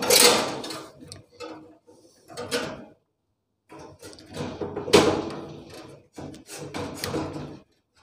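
Scraping, clicking and knocking as wire terminals are pulled off an air conditioner outdoor unit's run capacitor and the capacitor is worked loose in its sheet-metal electrical box. A series of short handling noises with gaps between them, the loudest about five seconds in.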